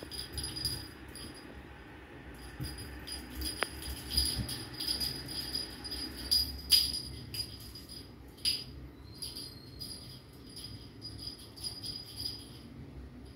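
Small bell on a feather wand cat toy jingling in irregular shakes as the wand is waved and batted, with a few sharper clinks.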